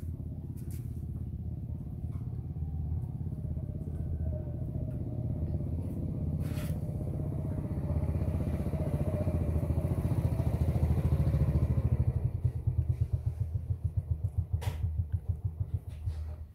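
Motorcycle engine running, growing louder over about the first twelve seconds, then throbbing in rapid uneven pulses for the last few seconds.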